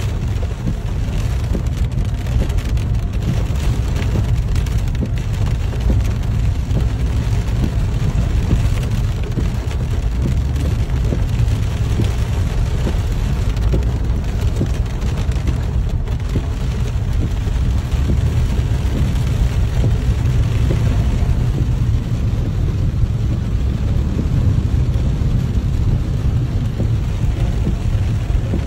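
Heavy rain falling on a car's roof and windshield, heard from inside the car, over a steady deep rumble.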